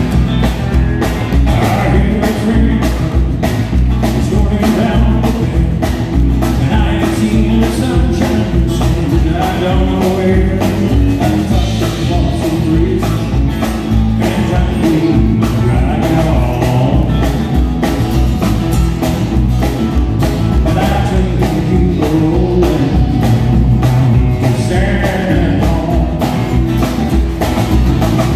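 Live country-rock band playing through a PA: electric guitars, bass and drum kit keep a steady beat, and a man sings while strumming an acoustic guitar.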